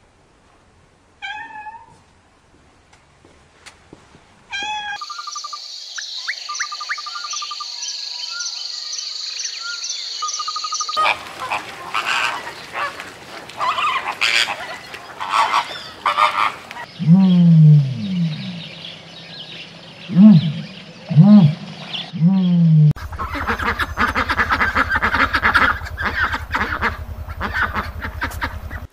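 A string of animal calls: two short meows from a cat early on, then a steady high-pitched tone with regular ticks, then a flamingo flock calling. After that come several low, falling honks, and near the end a flock of domestic geese honking together over a low buzz.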